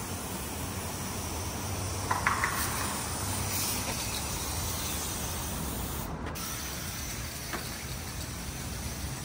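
Aerosol spray-paint can hissing in a steady spray, with a short cluster of sharp clicks about two seconds in.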